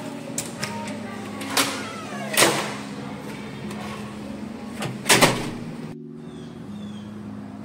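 Keycard-locked hotel door being unlocked and opened: a few sharp clicks and clunks of the lock, handle and door, the loudest a double knock about five seconds in, over a steady low hum.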